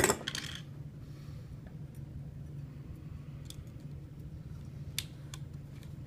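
Light metallic clatter and a few scattered sharp clicks as bare copper ground wire and hand tools are handled against galvanized steel electrical boxes, a short clatter at the start and single clicks after, over a low steady hum.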